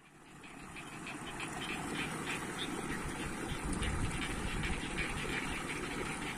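Steady rushing outdoor background noise, fading in over the first couple of seconds.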